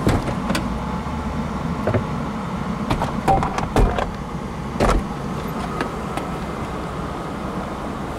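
Electro-hydraulic folding soft top of a 2002 Mercedes-Benz SL600 (R129) running steadily as the top unlatches and lifts, with several clicks and clunks from the latches and linkage, the loudest about 3 to 5 seconds in.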